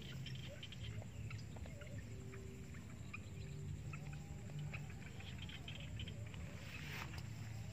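Footsteps and light rustling through long grass, with faint chirping animal calls in the background.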